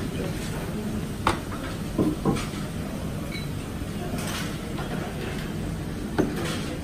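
Steady low background hum of a restaurant dining room, with a few short knocks and clicks: one about a second in, two close together around two seconds, and one near the end.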